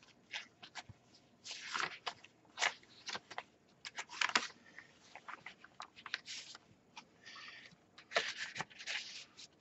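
Paper rustling and crinkling in short, irregular bursts as the pages, cards and tucked-in papers of a handmade paper junk journal are turned and handled.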